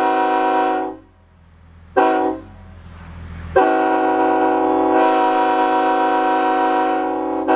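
Raised-letter Nathan K5H five-chime locomotive air horn sounding its chord: a blast that cuts off about a second in, a short toot about two seconds in, then a long blast from about three and a half seconds to the end.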